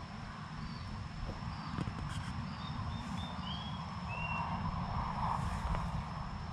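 Forest ambience: a few short, high chirping bird notes over a steady low rumble.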